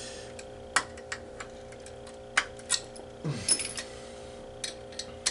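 Small flathead screwdriver clicking and tapping against the metal X-clamp on an Xbox 360 motherboard while prying it off: a string of sharp, irregular clicks, with a short scrape about three seconds in.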